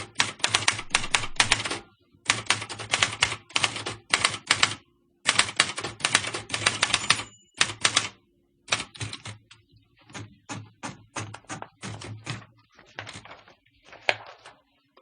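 Typewriter keys being struck in quick runs separated by short pauses; the strikes thin out to slower, softer taps in the second half.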